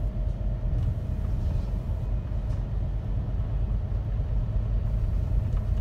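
Steady low rumble inside a moving MAN Lion's City A39 articulated bus: engine and road noise heard from the passenger cabin.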